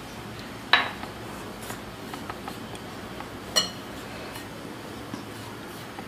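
Metal kitchen utensils clinking twice against a stainless steel bowl, a sharp clink about a second in and another just past halfway that rings briefly. A few faint small clicks of utensils being handled come in between.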